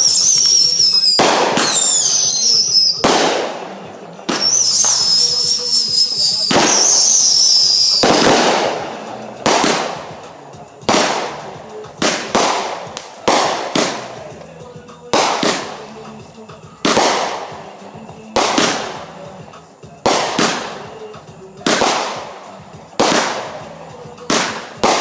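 Aerial consumer fireworks going off. For the first several seconds, shrill wavering whistles sound among sharp bangs. After that comes a steady run of loud, sharp booms about one to one and a half seconds apart, each trailing off in an echo.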